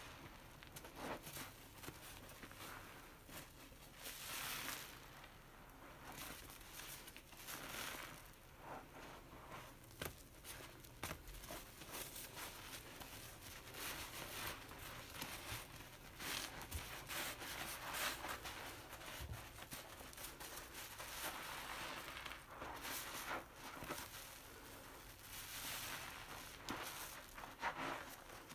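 Long foam sponge full of dish-soap lather squeezed and kneaded by hand in a basin of suds: wet squishing and crackling of the foam, swelling louder with each squeeze.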